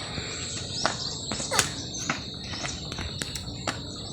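Insects droning in one steady high pitch, with frequent sharp clicks and a couple of short falling chirps.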